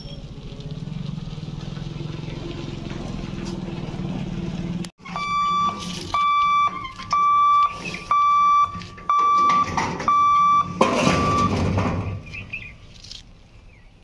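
Level-crossing warning hooter sounding a loud electronic beep, switching on and off about twice a second, the signal that the boom barriers are closing for a train. Before it, for the first few seconds, a steady low hum.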